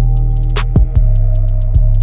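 Electronic music with a steady beat: quick hi-hat ticks over a heavy bass line.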